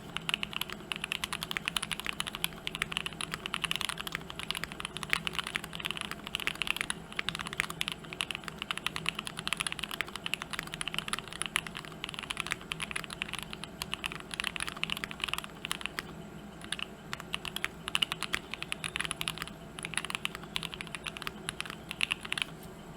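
Fast, continuous typing on a custom mechanical keyboard: a TKC Portico with an FR4 plate, hotswap PCB, silicone insert and GMK keycaps. Keystrokes come in quick runs with a short lull about two-thirds of the way through.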